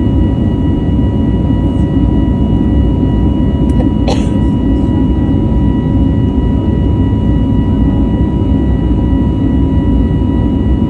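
Airbus A320neo jet engines running steadily under power, a dense low rumble with a few steady whining tones above it. A brief short sound comes about four seconds in.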